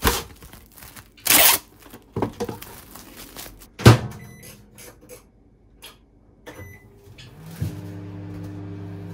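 Plastic cling wrap and its box being handled, with crinkling and rustling, and a thump about four seconds in. Then a few short beeps from a microwave oven's keypad, and near the end the microwave starts running with a steady hum.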